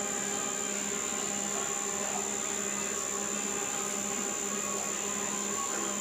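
Underwater treadmill running with a dog walking on it: a steady motor hum with a high-pitched whine that stays constant throughout.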